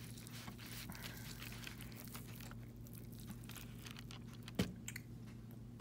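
Faint crackling and tearing as a piece of roasted chicken is pulled apart by hand in a cardboard takeout box, over a steady low hum. A single short knock near the end.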